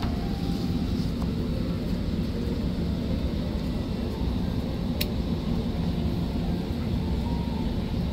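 Steady low rumble of aircraft cabin noise inside an Airbus A380, with one sharp click about five seconds in.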